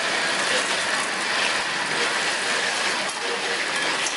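Shellfish omelettes frying in shallow oil on a large round flat griddle, sizzling and crackling steadily, with metal spatulas scraping and clinking on the griddle.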